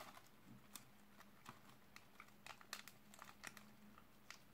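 Faint crinkling of a snack bar's wrapper handled in the fingers: a scatter of light, irregular crackles.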